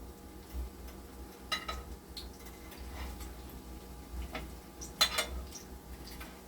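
Metal utensil clinking and knocking against a cooking pot: a few scattered sharp clinks, with the loudest double knock about five seconds in, over a steady low hum.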